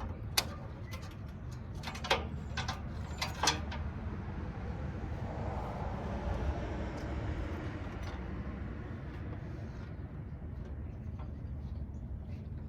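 Sharp snips of cutters clipping the connectors off copper wire: several crisp clicks in the first few seconds. Then a swell of noise rises and fades around the middle, over a steady low rumble.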